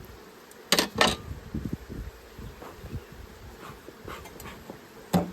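Honeybees buzzing around an open hive, a steady hum. Two sharp knocks about a second in and another near the end stand out above it.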